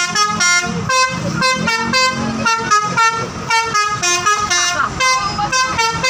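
Bus's multi-tone 'telolet' musical air horn, a Basuri-type horn, playing a quick tune of short toots, about three to four notes a second, with the pitch stepping up and down from note to note.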